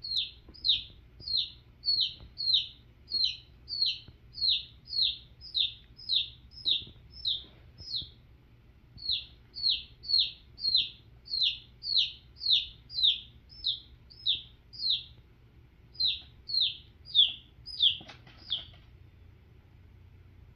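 A domestic chick giving a long run of loud, shrill distress peeps, each a short falling note, about two a second, with two brief pauses; the chick is caught in a kingsnake's jaws and being swallowed. The peeping stops a couple of seconds before the end.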